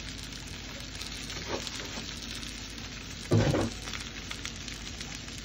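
Strips of banana peel sizzling on a hot electric griddle, a steady frying crackle with fine pops. About three seconds in, a brief voice sound rises above it.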